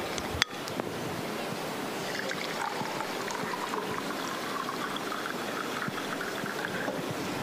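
Water poured from a plastic bottle into a drinking glass, the pouring sound rising steadily in pitch as the glass fills, from about two seconds in until near the end. A single sharp click comes just under half a second in.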